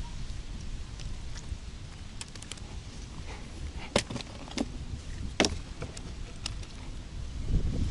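A crucian carp flapping on the planks of a wooden pier: a few sharp slaps and knocks in the second half, the loudest about halfway through.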